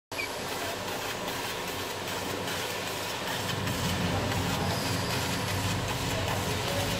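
130-watt CO2 laser cutter at work cutting leather: a steady rushing machine noise with faint irregular ticks, turning fuller and lower about three and a half seconds in.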